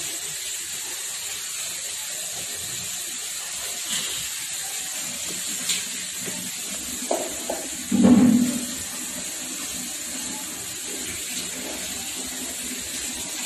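Hands rubbing shampoo into a wet cocker spaniel's coat over a steady watery hiss, with a brief louder low sound about eight seconds in.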